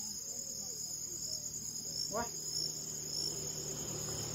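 Steady, high-pitched chirring of insects, with the faint low hum of a distant motorcycle starting to rise in the second half.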